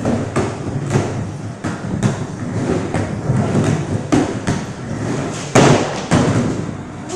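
Skateboard wheels rolling on a plywood ramp and floor, with repeated clacks and thuds of the board on the wood; the loudest board slap comes about five and a half seconds in.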